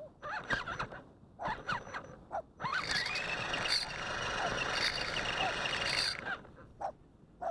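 Scale RC crawler's electric motor and gears whining in a few short throttle bursts whose pitch rises and falls, then a steady drive of about three seconds near the middle.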